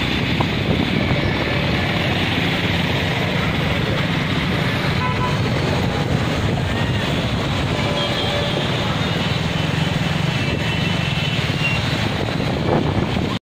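Traffic on a waterlogged street: car and motorcycle engines running and tyres swishing through standing floodwater, heard as a steady wash of noise that cuts off abruptly near the end.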